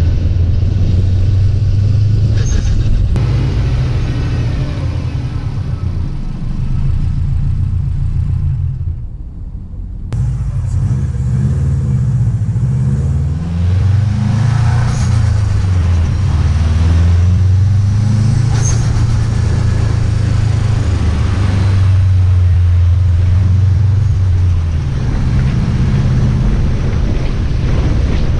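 Subaru WRX STi's turbocharged flat-four engine and exhaust under way, a steady low drone whose pitch climbs and falls as the revs change. It drops off and goes quieter for a second or two around the ninth second, then picks back up, with a few short sharp high ticks along the way.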